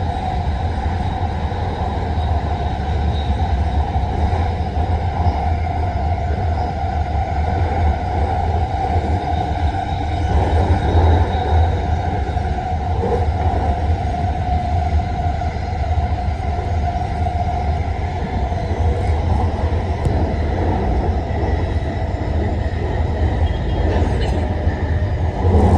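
Metro train running: a steady, loud rumble with a droning hum that swells a little about ten seconds in.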